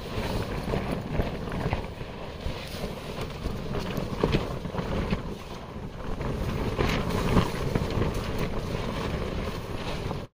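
Strong wind buffeting a camping tent, the tent fabric flapping and rustling over a low wind rumble on the microphone. It cuts off abruptly just before the end.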